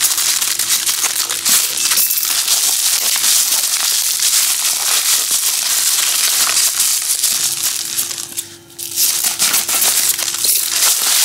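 Plastic packaging crinkling and crackling as a black plastic mailer is torn open and the bubble wrap inside is handled. The crackle is dense and continuous, with a brief let-up about eight and a half seconds in.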